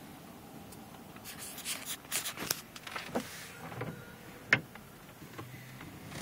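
Steady road rumble inside a moving car's cabin, with a run of short rustling and handling noises about a second in and a single sharp click a little past the middle.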